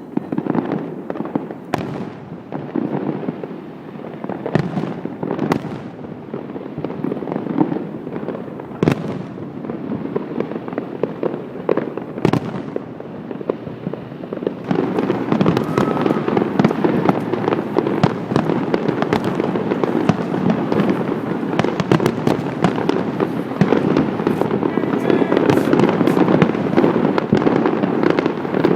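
Fireworks display: a dense, continuous crackle of bursting shells with many sharp bangs, growing busier and louder about halfway through.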